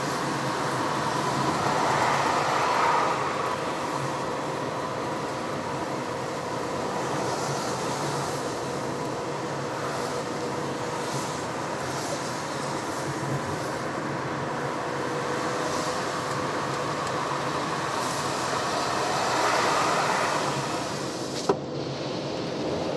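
Car driving on a city road, heard from inside the cabin: steady engine and tyre noise with a faint steady hum, swelling twice. A single sharp click comes near the end.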